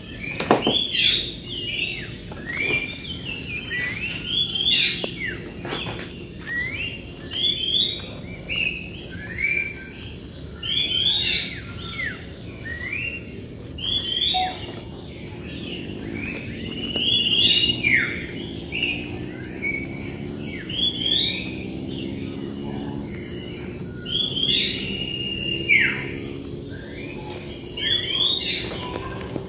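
Wild birds singing short, repeated chirping phrases over a steady high-pitched drone of insects. A faint low hum comes in about halfway through.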